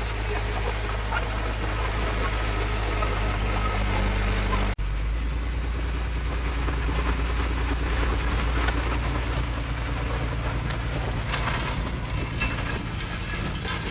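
Diesel engine of heavy earthmoving equipment running steadily, with a brief break about five seconds in and a few light clanks near the end.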